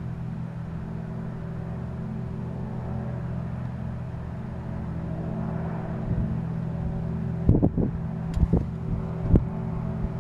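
Steady low industrial hum made of several stacked tones, which the uploader takes for infrasound from the Alcoa aluminium smelter. A few sharp knocks come near the end.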